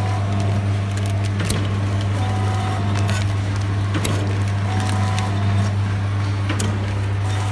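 Automatic coffee powder sachet filling and packing machine running with a steady low hum and sharp mechanical clicks at uneven intervals, as its sealing and cutting cycle turns out stick sachets.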